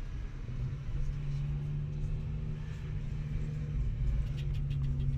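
Car interior noise while driving: a steady low engine and road rumble, with a few light clicks near the end.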